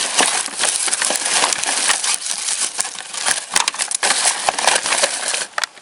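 Packaging being crumpled and crinkled by hand, a dense crackling that stops near the end.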